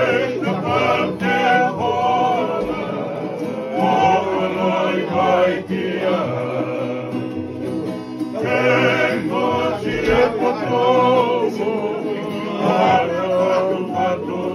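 Group of men singing a song together, accompanied by strummed acoustic guitars and a smaller plucked string instrument.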